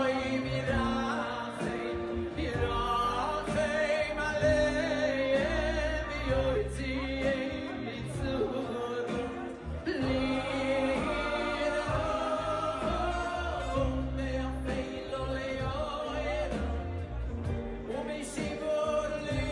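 Live Jewish music: a male lead singer sings a flowing melody into a microphone over amplified band accompaniment with a steady bass line.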